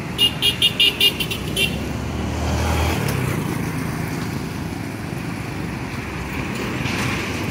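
Motorcycle and car traffic passing on a street, with a quick run of about eight short high beeps in the first second and a half. A motorcycle engine hum is clear up to about three seconds in, then settles into steady road noise.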